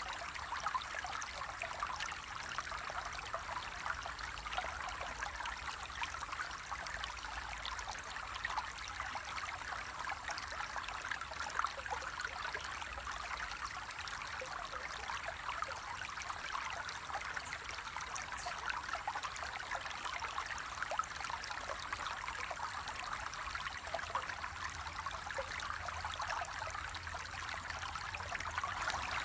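Water flowing steadily over stones, a continuous babbling trickle with many small splashes and no change in level.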